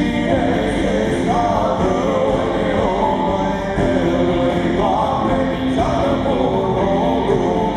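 Rock band playing live, a male lead vocal singing the melody over electric and acoustic guitars: a Romanian carol (colind) in a rock arrangement.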